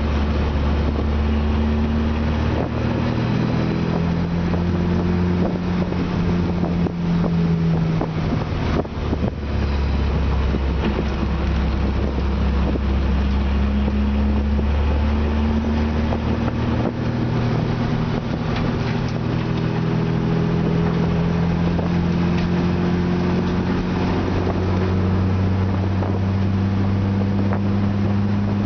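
BMW Spec E30 race car's inline-six engine running hard, heard from inside the caged cabin over wind and road noise. Its pitch climbs steadily for long stretches and drops abruptly a few times.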